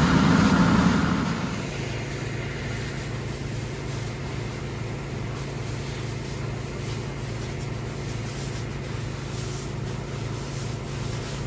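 A fire hose jet sprays water for about the first second and a half. Then a steady, even engine drone continues, typical of a fire engine running its pump to supply the hose line.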